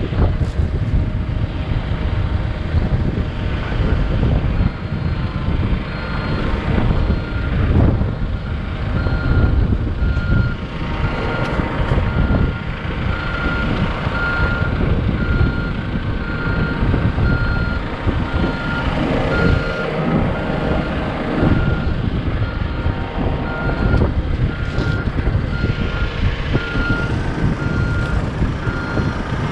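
A heavy machine's engine rumbling while its reversing alarm beeps at a steady, even pace, the beeps coming in a few seconds in.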